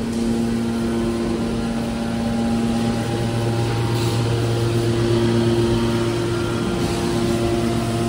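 Hydraulic power unit of a scrap metal press baler running: electric motor and hydraulic pump giving a steady machine hum with a low drone, its lowest note growing stronger about three seconds in.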